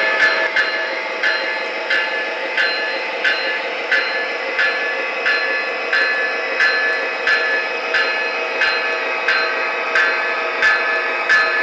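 O-scale model train running along the track, an MTH Premier Norfolk Southern GE AC44C6M diesel with Proto-Sound 3.0 leading. A steady running sound with a few held tones, cut by a sharp regular click about every two-thirds of a second.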